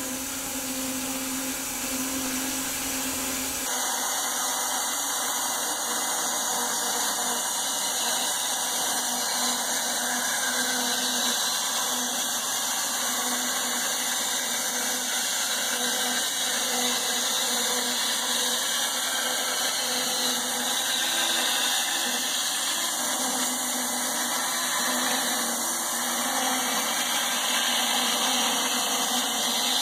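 Homemade wide-cut bandsaw mill running under load, its blade sawing steadily through several elm cants laid side by side in a cut about 61 inches wide. The sound changes abruptly about four seconds in, from a low hum to a steady hiss of blade and motor.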